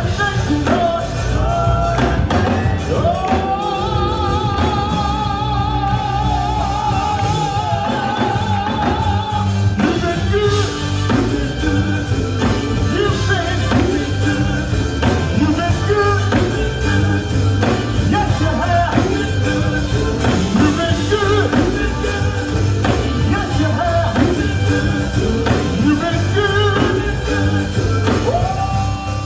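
Live gospel band playing, with drums and bass, and singing over it; a long wavering note is held for several seconds starting about three seconds in.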